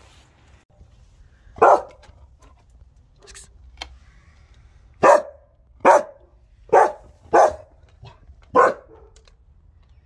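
A large dog barking: one loud bark about one and a half seconds in, then five more barks between about five and nine seconds in.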